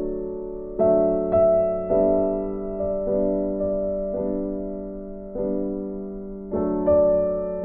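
Slow background music on a keyboard: chords struck one after another, about every half second to a second, each fading away before the next.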